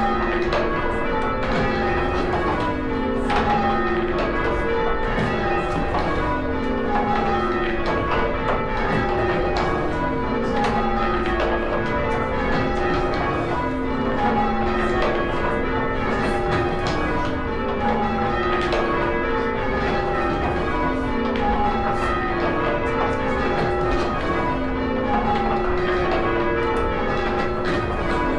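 Six church tower bells rung in sequence by a band of ringers, each run of strokes stepping down in pitch from the highest bell to the lowest and repeating about every two seconds.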